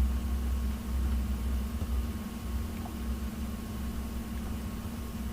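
Steady low mechanical hum of background noise, with a faint constant higher tone over it.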